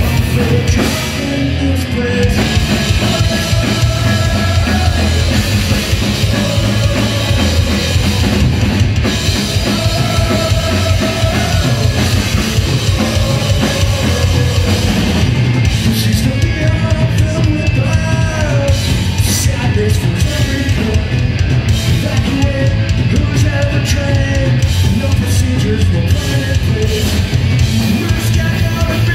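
Punk rock band playing live: drums, distorted electric guitars and bass at full volume, with a male singer's vocals over them.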